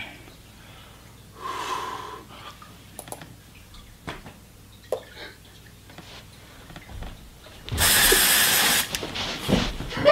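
A man choking on a mouthful of cinnamon and pepper spray: quiet breathing, then a loud, forceful cough about eight seconds in that lasts about a second, followed by short spluttering coughs and gasps.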